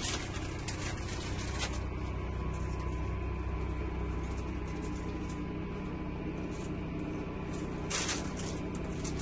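Steady low running hum inside a motorhome, with a faint steady whine above it, and a few brief rustles near the start and about eight seconds in.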